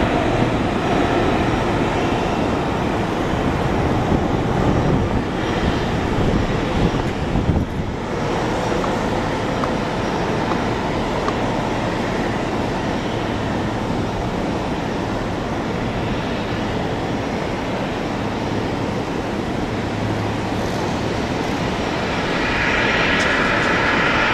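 Boeing 787-9 jet engines heard from a distance as the airliner rolls out after landing and slows, a steady rushing jet noise that swells louder in the last couple of seconds.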